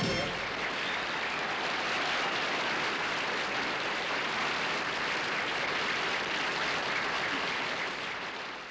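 Audience applause, a steady even clapping that fades out near the end.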